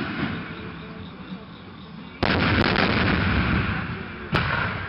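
Aerial firework shells bursting: the rumble of an earlier burst fades, then a loud bang about two seconds in and a smaller crack just after are followed by a long rolling rumble, and another bang comes near the end.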